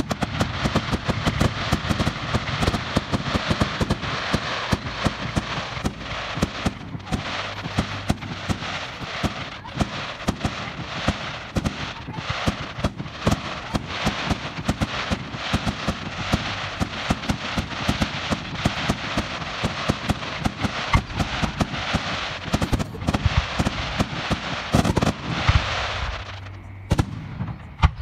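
Fireworks display: aerial shells and crackling effects going off in a dense, rapid run of bangs over continuous crackle, easing off briefly near the end.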